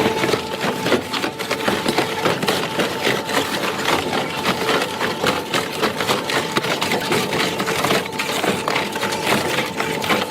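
Dense, continuous cracking and clattering, like material being broken up or handled roughly, over a faint steady hum.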